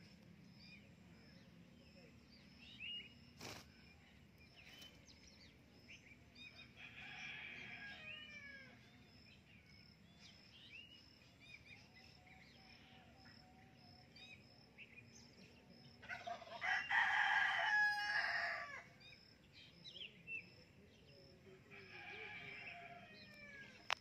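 Rose-ringed parakeet giving harsh squawking calls in three bouts, the longest and loudest about two-thirds of the way through, with faint chirps in between.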